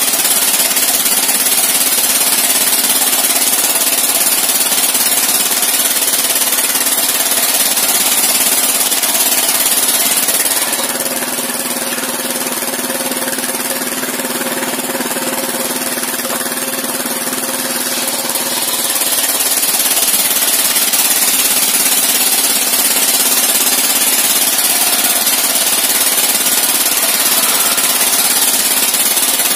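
Engine-driven circular sawmill ripping planks: the engine runs steadily under load while the blade cuts through the timber with a constant hiss. About ten seconds in it eases off for roughly eight seconds as the blade runs free between cuts, then loads up again with the next plank.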